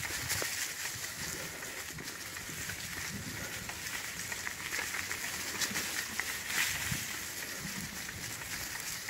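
Bicycle tyres rolling over a trail of dry fallen leaves, a steady rustling hiss with frequent small crackles.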